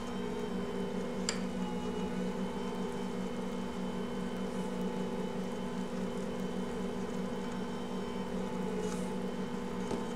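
Ankarsrum stand mixer running steadily, its motor humming as the bowl turns the whole-wheat bread dough against the dough hook. A single sharp click comes about a second in.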